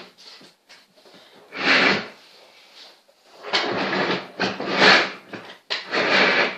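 Rummaging while searching for something: four bursts of handling and scraping noise as things are moved about and a drawer is worked, with short quiet gaps between them.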